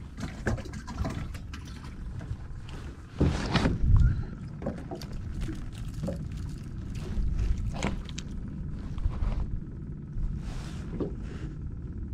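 Knocks, clicks and handling noises in a small aluminum fishing boat, over a steady low rumble, with a louder bump about three to four seconds in.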